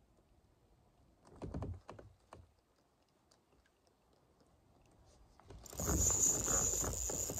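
Faint ticking of a spinning reel being cranked during a slow retrieve, with a few soft knocks about one and a half to two and a half seconds in. Near the end comes a sudden louder noisy rush as the rod is swept up: the hookset on a striking fish.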